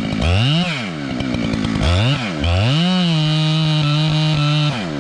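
Chainsaw engine revved up and down in quick swells, then held at high revs for about two seconds before dropping back.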